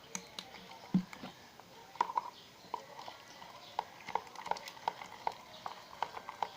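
Homemade glue-and-detergent slime being worked, giving an irregular run of small wet clicks and pops, several a second.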